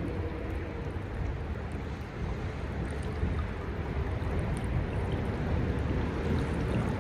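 Steady rush of a flowing stream, with a low rumble underneath that grows a little louder toward the end.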